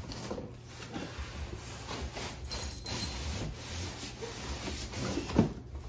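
Long cardboard shipping box being handled and opened, its cardboard flaps and sides rubbing and scraping, with a thump about five seconds in.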